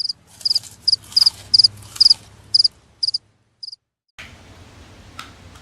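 Cricket chirping: about nine short, high chirps at an even pace, ending about three and a half seconds in. It is laid in as an awkward-silence sound effect, with the room sound cut out around it.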